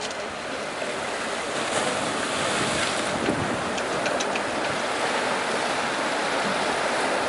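Sea water washing steadily, with wind buffeting the microphone and a few faint clicks about halfway through.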